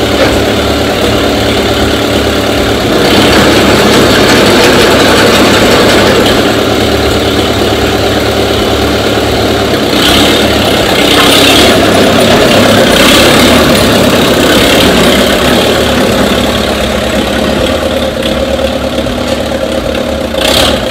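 Tractor engine running loud and steady, picking up about three seconds in and again around ten seconds as the tractor pulls away.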